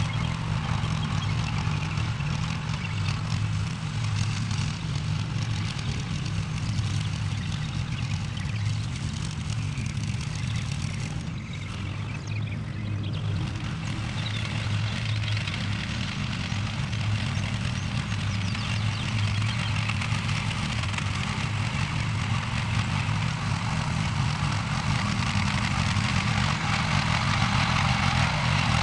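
Small gasoline engine of a garden tiller running steadily, dipping briefly about halfway through.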